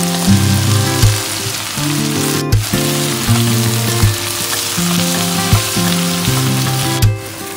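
Mussels, red onion and green beans sizzling as they stir-fry in a pan, with a spatula turning them. Background music with steady low notes plays under the sizzle, which breaks off briefly at a couple of cuts.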